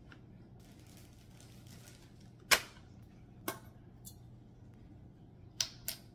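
Small objects being set down one by one on a stone countertop: a short rustle of bags, then sharp clicks and taps, the loudest about two and a half seconds in and a quick double tap near the end.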